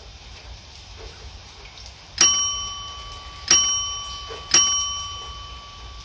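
Three loud, bright bell dings about a second apart, each ringing on and fading, over a steady hiss of rain: a notification-bell sound effect to go with the subscribe prompt.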